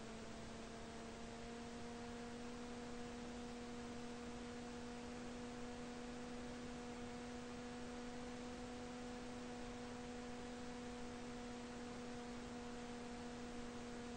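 Electric motor and propeller of a flying-wing RC plane running at steady cruise throttle: a steady hum with two higher overtones over constant hiss.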